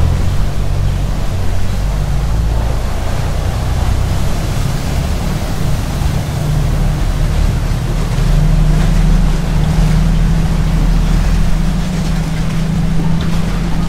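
Khlong Saen Saep canal express boat's engine running as a steady low drone, swelling louder about eight seconds in as the boat pulls away from the pier, with the propeller wash churning the canal water.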